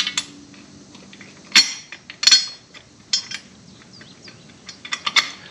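Sharp metal clinks and knocks, about half a dozen spaced irregularly, from a strut's coil spring, steel top mount and bolts being handled and fitted together by hand.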